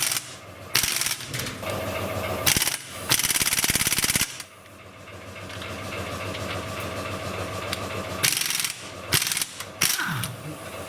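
Pneumatic impact wrench rattling in several short bursts as it runs bolts, the longest burst about a second long.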